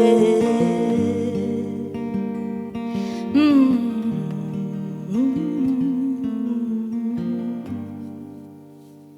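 Solo acoustic guitar ringing out the closing chords of a folk-pop song, with two long wordless sung notes. The sound fades away near the end.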